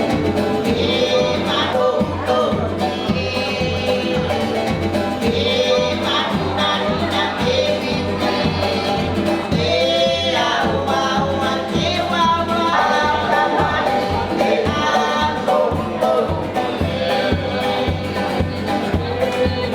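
Lively music: several voices singing together over instruments with a steady beat.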